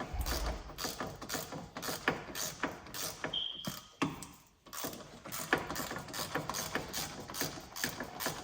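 Harbor Freight Icon G2 hand ratchet clicking in repeated runs as the handle swings back and forth, drawing the hub bearing bolts down. There is a short high squeak and a brief pause about four seconds in.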